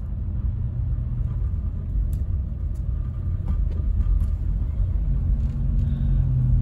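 Low rumble of a car driving slowly on a wet, slushy road, heard from inside the cabin. The engine's low hum eases about a second in and picks up again near the end, with a few faint ticks.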